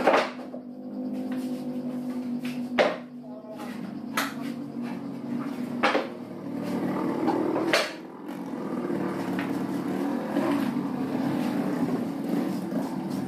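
Plywood cabinet panels knocking against each other and on a wooden worktable as they are handled and set down: about five sharp wooden knocks, spread over the first eight seconds.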